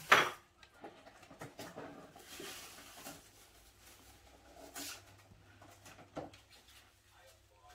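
Kitchen handling sounds: one sharp knock right at the start, then faint scattered clicks and knocks as a covered bowl and utensils are moved about.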